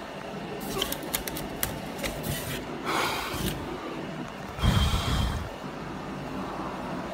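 Fingers rubbing and brushing a carved styrofoam surface and the phone held against it, with scattered small clicks and scratches. A louder handling bump comes about five seconds in, over a steady low hum.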